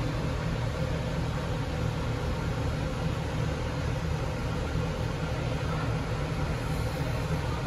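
Steady low mechanical hum with an even hiss over it, unchanging throughout: continuous background machinery noise in a coffee bar.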